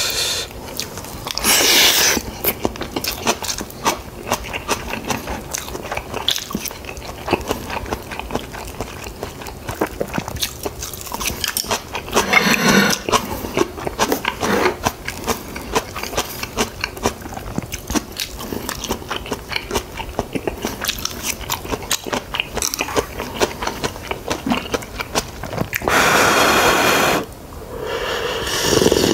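Close-miked chewing and crunching of rice and side dishes, with many small bites and mouth clicks. Near the end comes a long slurp of broth drunk straight from a bowl.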